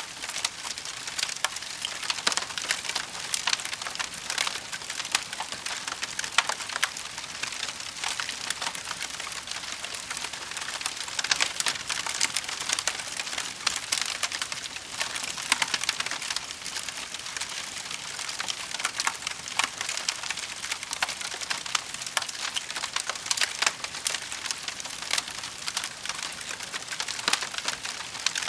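Fireplace fire crackling steadily, a dense run of small pops and snaps.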